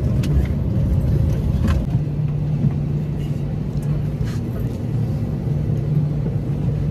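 Steady low hum and rumble inside an airliner cabin after landing, settling into an even hum about two seconds in, with a few light clicks and knocks.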